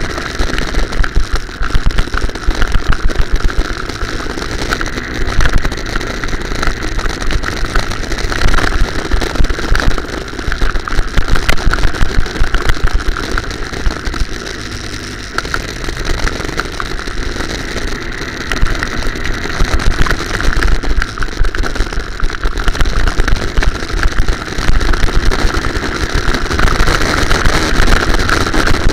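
Go-kart engine running while the kart is driven, picked up by a camera mounted on the kart. Loud throughout, with constant fine rattling from the kart's vibration.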